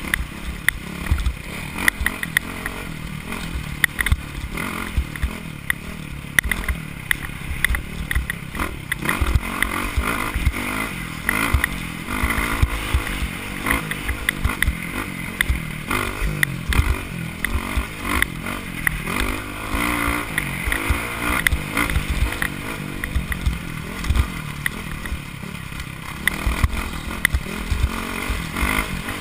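Off-road dirt bike engine running hard at speed, its pitch rising and falling with the throttle, with frequent knocks and clatter from the bike hitting bumps and wind buffeting the helmet-mounted microphone.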